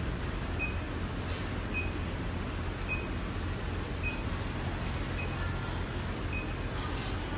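High-frequency induction heating machine running, a steady electrical hum with a hiss, while a bar sits in its water-cooled work coil. A short high beep repeats about once a second.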